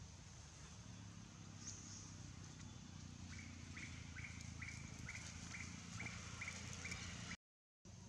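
A bird calling: a short high note repeated about two to three times a second, starting about three seconds in, over a faint low hum. The audio cuts out briefly near the end.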